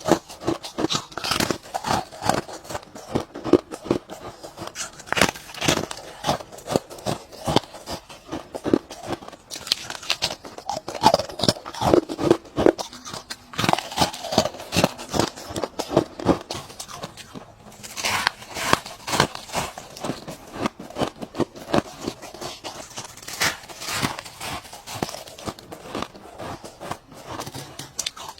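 Ice being bitten and chewed: a steady run of crisp crunches, several a second, with only brief lulls.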